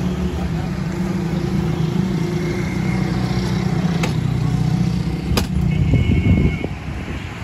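An engine running steadily, like a motor vehicle idling, with two sharp clicks about four and five and a half seconds in.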